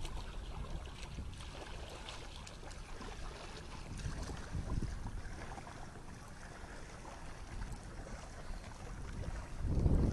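Wind buffeting the microphone over small waves lapping and splashing against a sailboat's hull, with a louder swell of rumble near the end.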